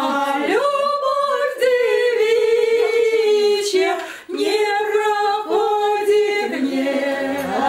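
Women singing a song together unaccompanied, in long held notes, with a short pause for breath about four seconds in.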